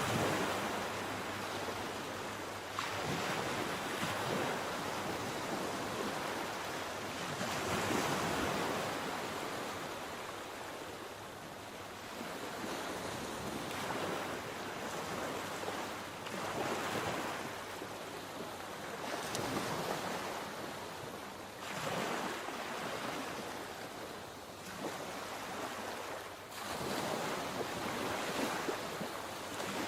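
Sea waves breaking and washing onto the shore, one after another every few seconds, with some wind on the microphone.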